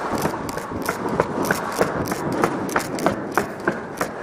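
Running footsteps on a hard floor, a sharp step about three times a second.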